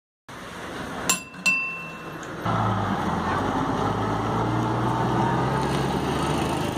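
Two sharp metallic dings with a short ring, then a city bus engine running with a steady low hum as the bus pulls away, over street noise.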